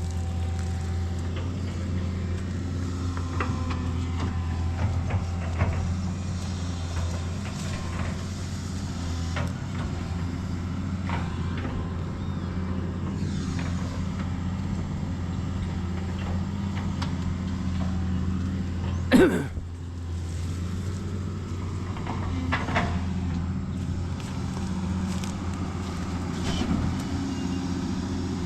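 A backhoe's diesel engine runs steadily under work, with scattered clanks and knocks from the digging. About two-thirds of the way in there is one loud, brief noise.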